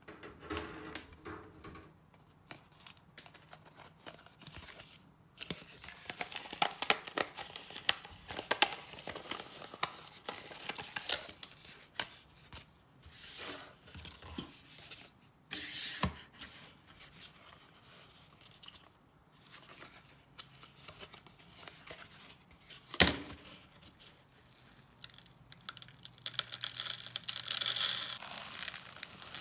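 Thin plastic cups handled and fitted together, crinkling and clicking, with one sharp knock about two-thirds of the way through. Near the end, granular chick feed is poured from a plastic jar into a plastic cup, a dense rattling rush.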